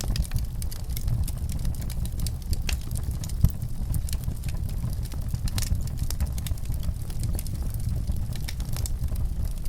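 Wood fire in a fireplace crackling, with irregular sharp pops and snaps over a steady low rumble; one pop about three and a half seconds in is the loudest.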